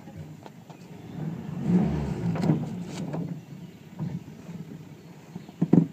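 Rustling and hollow knocks from a small boat as a trotline is handled over the side, with a low rumble for a couple of seconds and a sharp double knock near the end.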